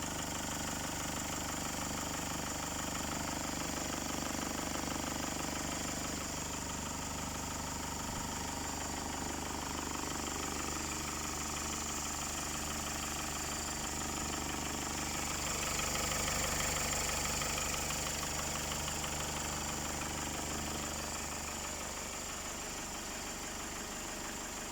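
Range Rover Classic engine idling steadily, swelling a little louder about sixteen seconds in.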